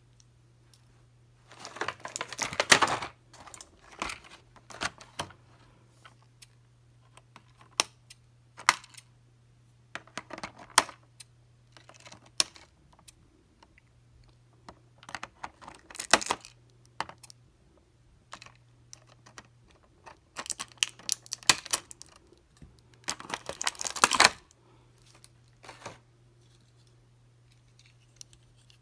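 Clear plastic packaging tray crinkling and clicking as a plastic action figure is handled and worked out of it, in irregular bursts of crackles and clicks. The loudest bursts are about two seconds in and a few seconds before the end.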